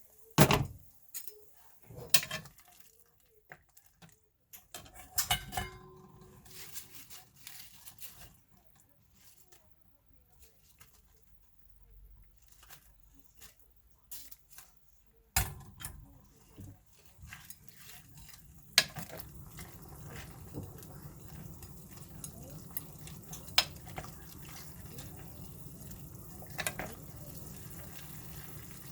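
Kitchen utensils and dishes knocking and clinking a few times, then, about two-thirds of the way in, a steady sizzle starts as food cooks in a hot pan.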